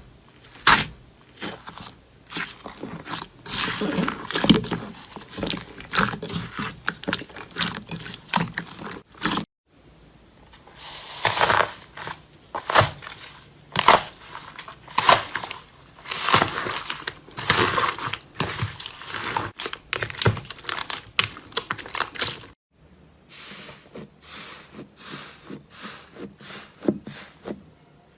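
Close-miked crunching, crackling and tearing of slime being pressed, stretched and pulled apart by hands, in quick uneven strokes. The sound breaks off twice where one clip cuts to the next.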